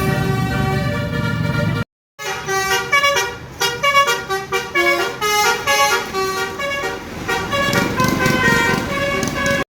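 Bus telolet horn, a multi-tone musical horn. It first holds steady chords over a bus engine's rumble, then after a short break plays a quick tune of changing notes, with the engine rumble coming back near the end.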